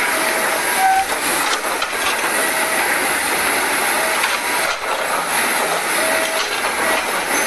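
SANY crawler crane running and creeping on its steel tracks: a steady heavy mechanical noise with brief squeaks now and then.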